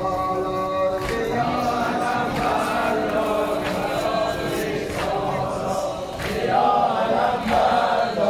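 A group of men chanting a Muharram mourning lament together, over a steady beat struck roughly every 0.7 seconds. The chanting grows louder about six and a half seconds in.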